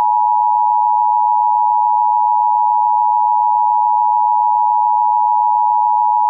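EAS Attention Signal: the loud, steady two-tone alarm of the Emergency Alert System, two pitches sounded together, held without a break. It is the signal that an emergency alert message follows, here a Child Abduction Emergency (Amber Alert).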